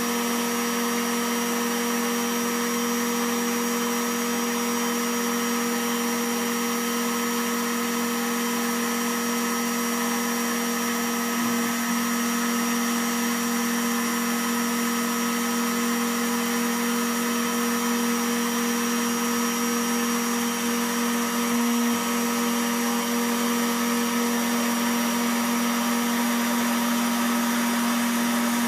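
CNC router spindle motor running at steady high speed: a constant whine over a hiss, unchanging throughout.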